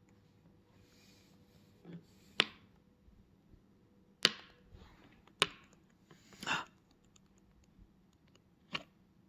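A few sharp clicks and knocks spaced a second or more apart, with a short scrape a little past halfway: a budgie pecking at and knocking a pen about.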